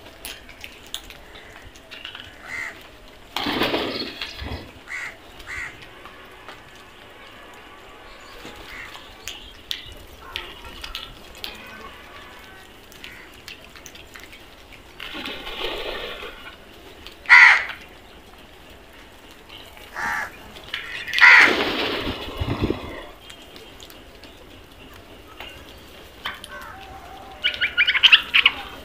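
House crows cawing now and then: several separate loud calls spread through, with a quick run of short calls near the end and softer chirps in between.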